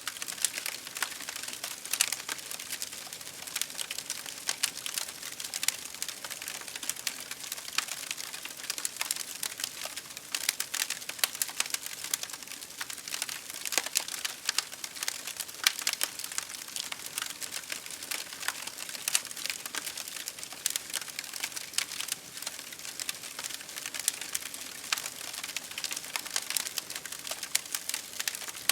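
Wood campfire crackling with a dense, irregular run of small pops and snaps, a few sharper than the rest, over a steady hiss of rain.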